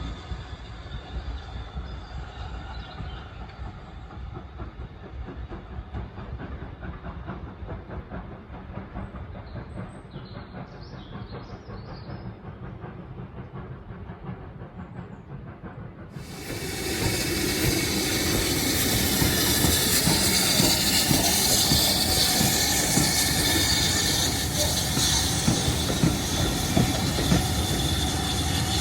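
A train running on the line with wheels clicking over rail joints. About 16 seconds in, the sound jumps suddenly to a much louder, closer rush of train noise.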